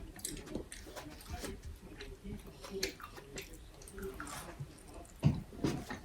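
A person chewing juicy fruit close to the microphone: scattered wet mouth clicks and smacks, with a louder bite about five seconds in.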